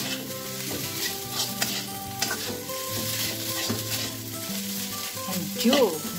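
Metal slotted spatula stirring and scraping fried rice around a wok, with oil sizzling and repeated scrapes and taps of the spatula against the pan. A brief louder wavering sound comes near the end.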